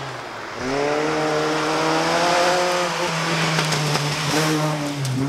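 Rally car's engine accelerating hard out of a hairpin, its pitch climbing, with a gear change about three seconds in and the revs rising again near the end.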